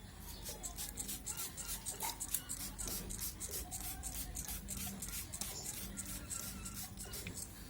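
Rapid rhythmic rubbing or scrubbing strokes, about five or six a second, keeping a steady pace.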